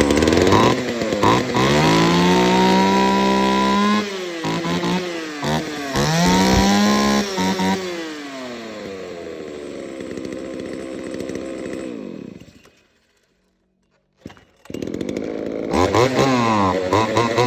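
Ryobi G320 two-stroke chainsaw, just started, revved up and let back down twice, then idling steadily. It drops out for about two seconds, then comes back running and is revved again near the end.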